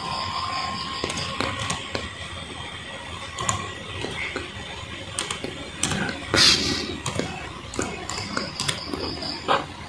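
Keys clicking irregularly on a Lenovo B490 laptop keyboard as a product key is typed in. About six and a half seconds in, a brief loud hiss rises above the clicks.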